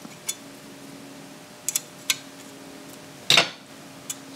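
Sharp metallic clicks and clinks of small bolts and tools being handled while handguard bolts are started into an AR-15 upper receiver, with a louder brief clatter about three and a half seconds in.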